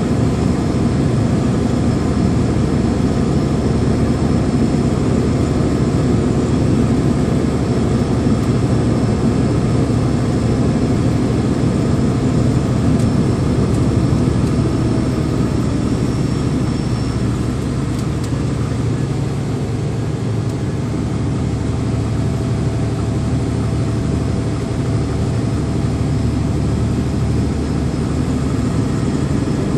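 A truck running steadily under load as it drives up a mountain grade, with a low, even engine hum that eases off slightly a little past the middle.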